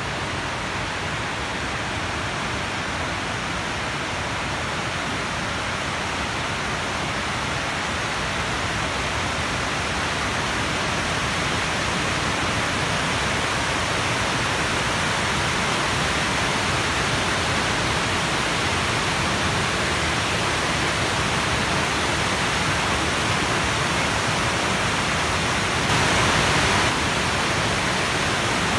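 Heavy water pouring over a dam's overflow spillway, a steady rushing roar that slowly grows louder, with a brief louder surge near the end.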